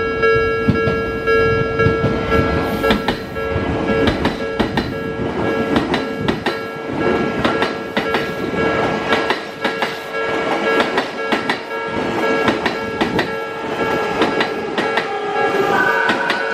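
Level-crossing warning bell ringing steadily while an Odakyu Line train passes over the crossing, its wheels clacking over the rail joints. A rising whine joins near the end.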